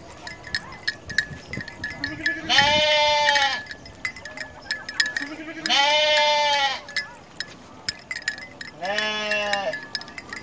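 Sheep bleating: three long bleats, each about a second, spaced about three seconds apart, over faint rapid ticking.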